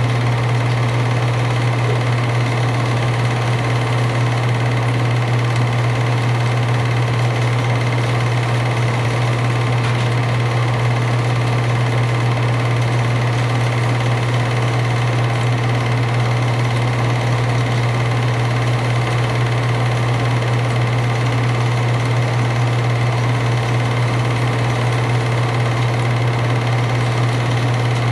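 An 8mm film projector running steadily: an even motor hum with mechanical clatter from the film drive.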